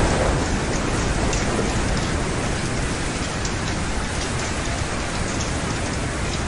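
Steady heavy rain: a dense, even hiss of falling rain with faint ticks of single drops striking.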